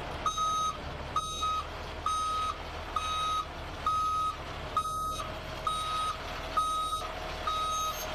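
Tow truck's reversing alarm beeping steadily, a little faster than once a second, as the truck backs up, with the truck's engine running low underneath.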